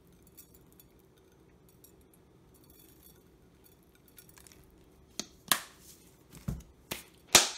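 Faint ticking of a pinch of salt sprinkled by hand onto pasta on a plate, then several sharp knocks and clicks as items are handled on the kitchen counter, the loudest near the end.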